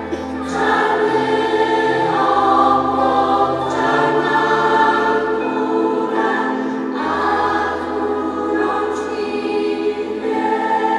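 Large choir of young voices singing together in long held chords.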